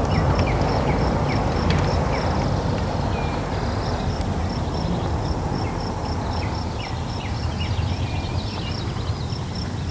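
Rural outdoor ambience: birds chirping and a high chirp repeating evenly, over a steady low rumbling noise that eases slightly.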